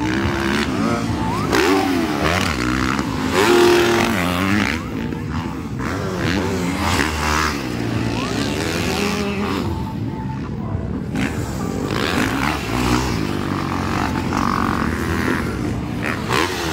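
Motocross dirt bike engines racing on the track, revving hard and easing off again and again so that the pitch keeps rising and falling, with several engines overlapping.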